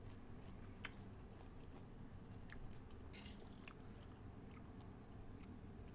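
Faint chewing of a large mouthful of pickled salmon, with a few soft wet mouth clicks spread through it.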